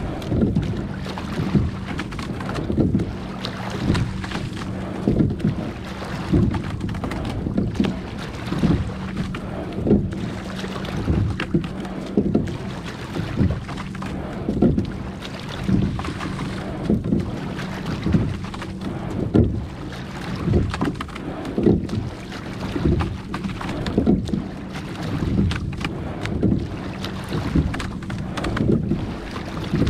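Rowing boat under way on oars: the stroke gives a regular low swish-and-knock about once a second, over water and wind noise on the microphone.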